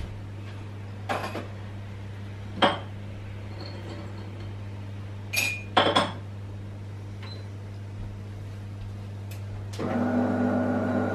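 A few sharp clinks of glass or dishes over a steady low hum. Near the end an appliance starts up with a loud, buzzing hum.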